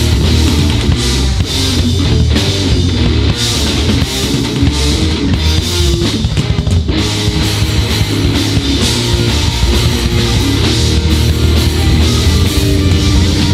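Rock band playing live: electric guitars, bass guitar and drum kit, loud and dense, heard straight from the mixing desk.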